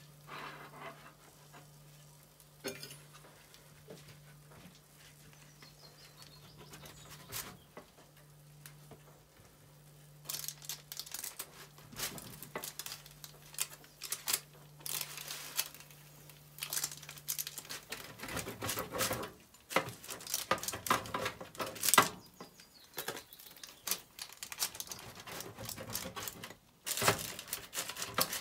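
Pizza cutter wheel rolling through a crisp-crusted pizza on a baking paper–lined metal tray: crunching and scraping with the baking paper crinkling and the wheel clicking against the tray. It starts quietly with light handling sounds and gets busy about ten seconds in.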